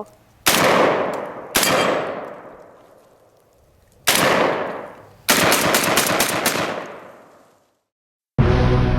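MKA 1919 12-gauge semi-automatic shotgun firing 2¾-inch shells: three single shots, each with a long echoing tail, then a rapid string of about six shots. Background music starts near the end.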